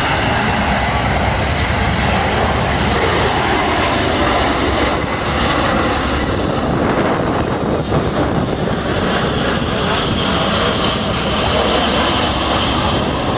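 Jet noise from the four turbofan engines of a Boeing C-17 Globemaster III flying a low pass: a loud, steady, continuous rush whose higher hiss grows stronger near the end.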